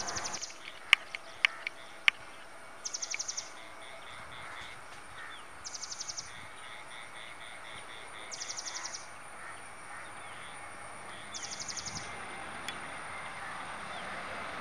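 A bird's high, rapid trill, each about half a second long, repeated five times roughly every three seconds over a faint outdoor background. A few sharp clicks in the first two seconds are the loudest sounds.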